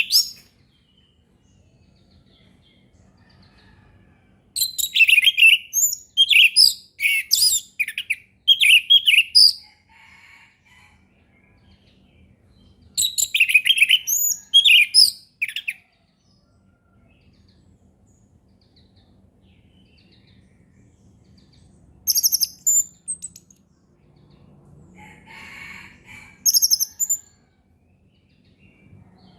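Orange-headed thrush singing in the clear, flowing 'ngeplong' style: a run of whistled notes lasting several seconds, a shorter run after a pause, then two brief high calls toward the end.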